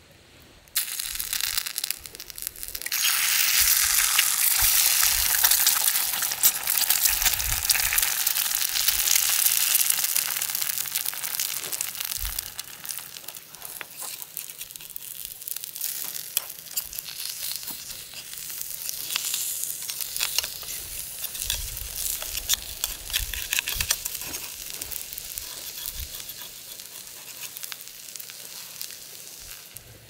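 An egg frying in a hot carbon steel pan: a sudden loud sizzle as the egg drops in about a second in, strongest for the next ten seconds or so, then easing to a steadier, quieter sizzle with small pops.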